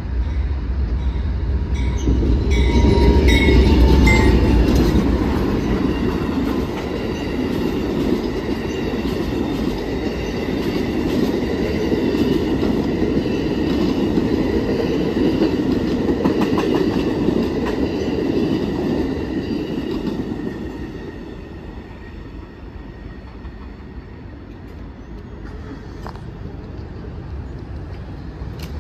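Amtrak passenger train passing close by: a heavy rumble as the head end goes past in the first few seconds, with high squealing tones from the wheels. The bilevel cars then roll by in a steady roar with some wheel clatter, and the sound falls away after about twenty seconds as the train recedes.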